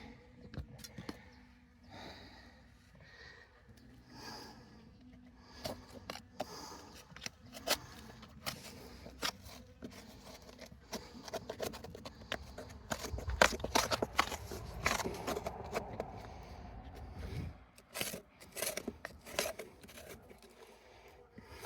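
Irregular clicks, scrapes and rustling from hands working with materials at close range, busiest and loudest from about 13 to 17 seconds in.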